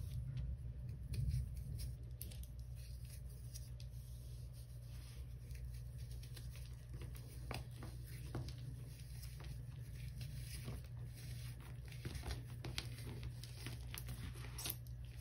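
Caked Comet cleanser powder crushed between fingers with long acrylic nails: a scatter of faint, irregular crackles as the chunks break and crumbs and dust fall onto the pile, over a steady low hum.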